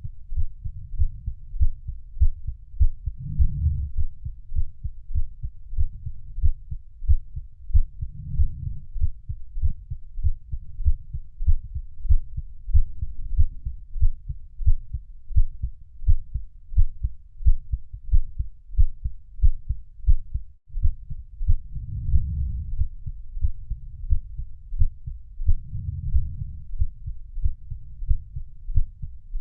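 Heartbeat sound: a steady, even rhythm of deep, muffled thumps with nothing above the bass. A stronger swell comes every four to five seconds, and there is a brief dropout about two-thirds of the way through.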